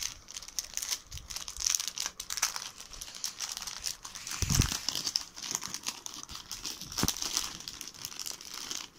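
Plastic packaging and bubble wrap crinkling continuously as hands open small sachets of jewellery, with a couple of soft knocks from handling about four and a half and seven seconds in.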